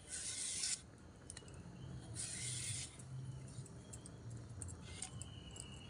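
A knife scraping the fibrous outer skin off a seeded-banana stem core: two short scraping strokes, one at the start and one about two seconds in, with a few light ticks between them.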